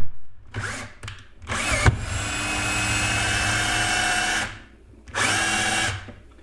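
Cordless drill spinning a drywall screw at high speed in a plastic ear butt, the screw head cutting into the plastic to countersink itself. Two short bursts, then a steady run of about two and a half seconds; it stops briefly and runs again for about a second near the end.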